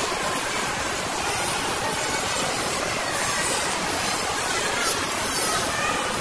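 Busy shopping-mall ambience: a steady wash of background noise with faint, indistinct crowd voices.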